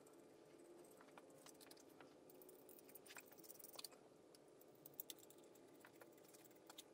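Faint, scattered clicks and light knocks of R35 GT-R ignition coils being handled and set into their wells on an RB26 cam cover, over a faint steady hum.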